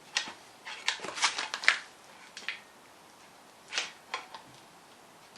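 Metal tool levering against the timing sprockets of a Mini A-series engine to work them loose: a quick run of sharp metallic clicks and scrapes over the first two seconds, then a few single clicks.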